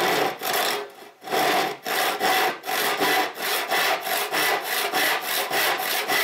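Hand saw cutting through an oak board in steady back-and-forth strokes, about two a second after a longer first stroke.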